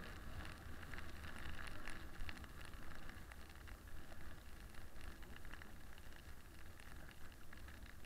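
Toboggan sliding fast down a packed-snow track: a steady scraping hiss of the sled on the snow with many small crackles, over a low rumble of wind buffeting the microphone.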